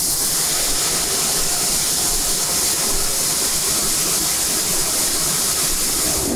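Steady, loud hiss of factory workshop machinery, bright and even, with no break.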